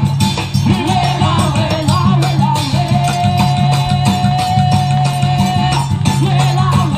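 Band music with a steady bass and a melody line that holds one long note from about three seconds in to nearly six.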